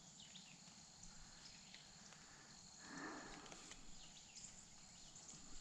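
Quiet rural field ambience: steady high-pitched insect trilling, with a few faint short chirps and a soft swell of noise about three seconds in.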